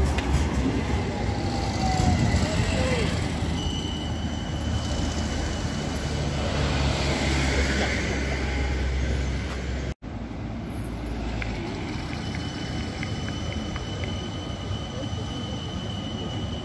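CAF-built Euskotren light-rail tram running on street track: a steady low rumble of the car rolling past close by. After an abrupt cut about ten seconds in, the tram is quieter as it pulls away from the stop, with a thin steady high whine over the rumble.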